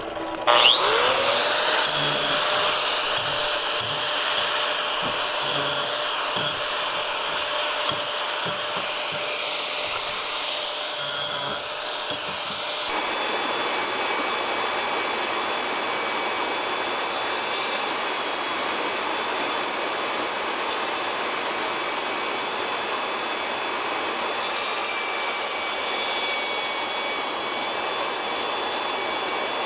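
Electric grinder spinning up with a rising whine about half a second in, then grinding steel roughly. About 13 seconds in the sound turns to a smoother, steady hiss.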